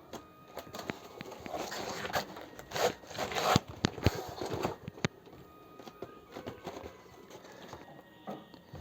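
Hands handling and fitting foam-board plane parts: light rustling and scraping with scattered sharp clicks and taps, busiest in the middle.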